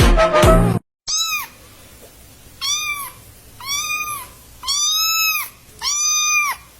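A cat meowing five times in a row, about one meow a second, each one rising then falling in pitch. Music plays for under a second at the start and cuts off before the meows.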